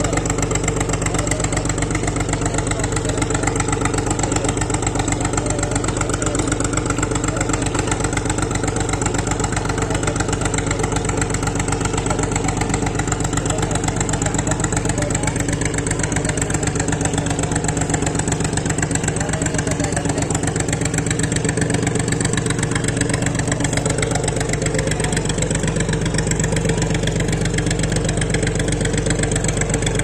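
An engine running steadily at idle, a constant low drone that does not change.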